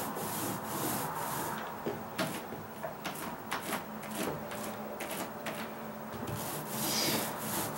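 Paint roller on an extension pole rolled back and forth over a bare OSB plywood deck floor, a rough rubbing swish. In the middle come a few sharp clicks and knocks as the roller is worked in the paint tray.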